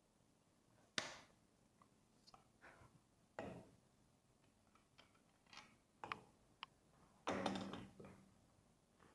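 Quiet snooker room with scattered small clicks and knocks as a player moves around the table between shots. A sharp click comes about a second in, and a brief rustling clatter comes near the end.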